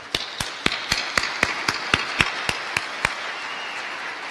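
Audience applauding, with one person's loud, evenly spaced hand claps close by, about four a second, stopping about three seconds in while the general applause goes on.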